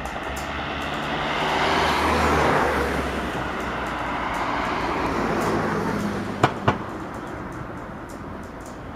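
Road traffic: a passing car swells and fades over a couple of seconds, with a low engine hum underneath. A little past six seconds in come two sharp knocks about a quarter second apart.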